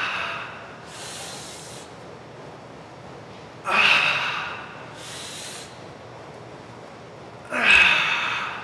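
A man's forceful, effortful breaths through clenched teeth while lifting heavy dumbbells in deadlift reps: two loud, sharp breaths about four seconds apart, each followed by a softer hissing breath.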